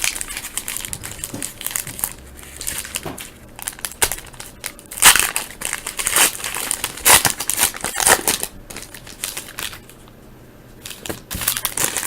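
Wrapper of a hockey card pack being torn open and crinkled by hand, in irregular crackling bursts that pause briefly near the end.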